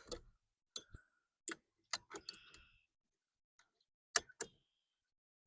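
A few separate sharp metallic clicks from a socket ratchet being worked on a bolt, spaced irregularly, with the loudest pair about four seconds in.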